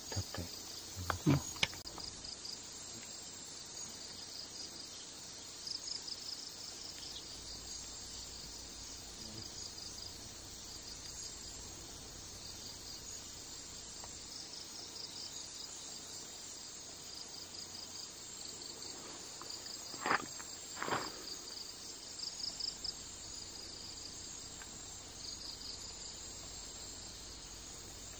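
Night insects chirping in high, rapidly pulsed trains that repeat over and over. A few brief knocks come about a second in and twice around twenty seconds in.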